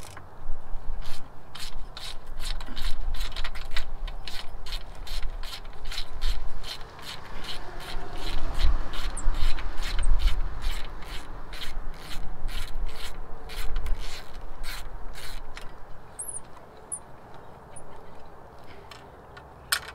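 Ratchet wrench clicking in a long, even run of about three clicks a second as it turns the bolt on a trailer breakaway switch mount, with a low rumble underneath.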